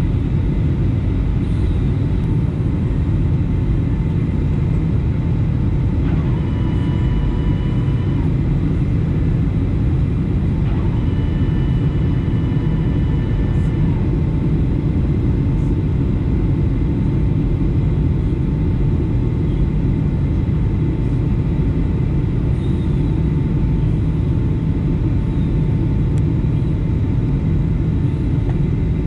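Steady cabin noise inside a Boeing 757 on approach: the low, even roar of the jet engines and air rushing past the fuselage, with a faint steady whine above it.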